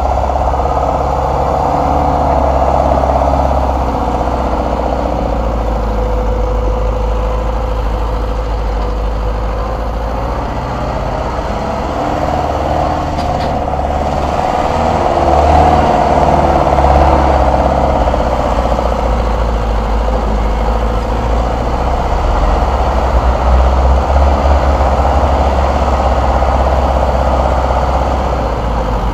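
Mercedes-Benz Unimog 421's four-cylinder diesel engine running at low revs as the truck crawls through deep ruts on a trial course, swelling in loudness briefly about halfway through and again near the end.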